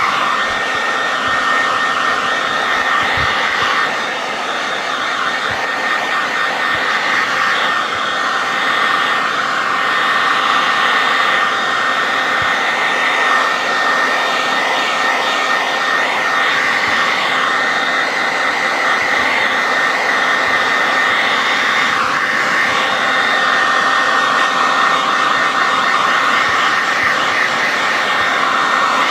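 Handheld hairdryer running steadily on its hot setting, a continuous loud whoosh of blown air, used to blow the crimps out of faux fur.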